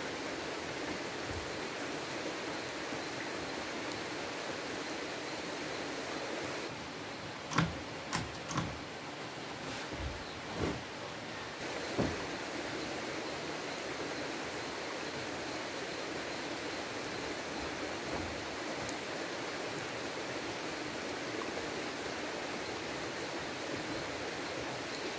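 Steady rush of flowing stream water, with a handful of short knocks and bumps about seven to twelve seconds in.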